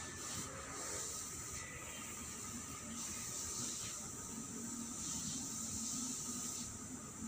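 Outdoor ambience: a high, steady hiss that swells and fades roughly once a second, over a low rumble.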